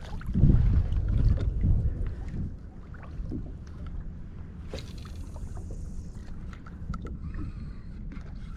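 Kayak moving on the water: water sloshing against the hull with wind on the microphone, loudest in the first two seconds, then quieter with a few light knocks.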